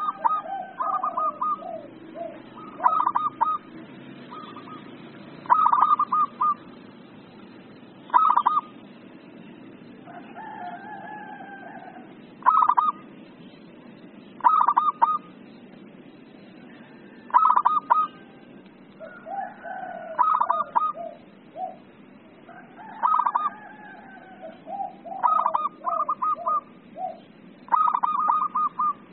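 Zebra dove (perkutut) in excited 'emosi' calling: repeated bursts of rapid staccato coos every two to three seconds, with lower rolling coos between them, over a steady low hiss. This is the call used to spur lazy caged doves into singing and to lure wild ones.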